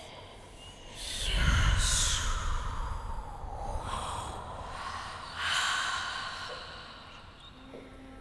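Two breathy whooshing swells: the first, about a second in, is the loudest, with a deep rumble and a hiss falling in pitch; the second, softer, comes about five seconds in. A low steady tone enters near the end.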